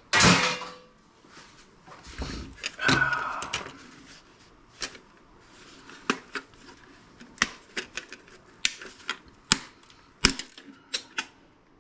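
Clatter, clicks and taps of small plastic and metal parts being handled as a Zenith DTT900 digital TV converter box is taken apart by hand. There are two short bursts of clatter, one at the start and one about three seconds in, then a string of separate sharp clicks.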